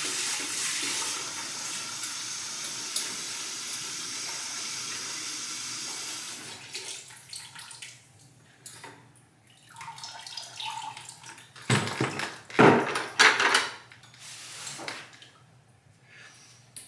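Water running from a newly installed Woodbridge brushed-nickel freestanding tub filler's spout into a plastic bucket on its first test run. The steady rush stops about six or seven seconds in, followed by handling clatter and a few loud knocks, the loudest about twelve to thirteen seconds in.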